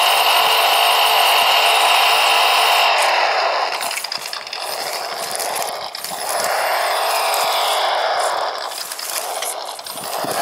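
Electric drive motor and gearbox of a 1/18-scale PRC QX-4 mini rock crawler whining under load. The whine is steady at first, then comes in surges whose pitch rises and falls as the throttle is worked over rough ground, dipping briefly a few times.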